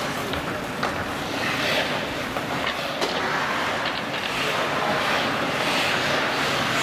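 Ice rink ambience: skate blades scraping the ice in swelling hisses every second or two, with scattered short clicks.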